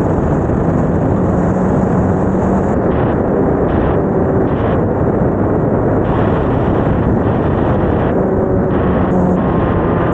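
BMW R1250GS Adventure's boxer-twin engine and exhaust running while riding, mixed with heavy wind noise on the microphone.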